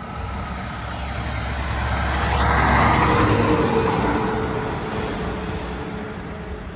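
A diesel semi-truck hauling a dump trailer drives past: engine and tyre noise swell to a peak about three seconds in, then fade as it moves away.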